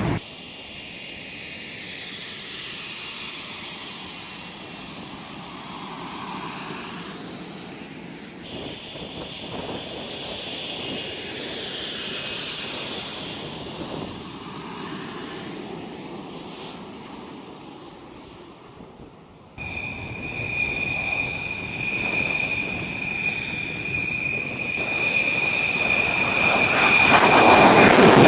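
Military jet engines whining steadily on the ground. First Italian Panavia Tornado fighters are heard, then, after a cut, French fighter jet engines with a lower-pitched whine that grows louder near the end.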